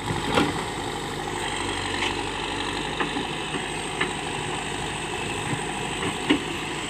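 Terex 740 backhoe loader's diesel engine idling steadily, with a few faint clicks over it.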